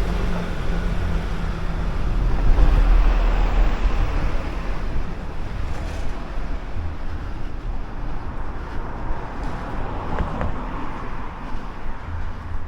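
Outdoor street ambience: a steady rumble of road traffic mixed with wind buffeting the microphone, swelling a couple of seconds in.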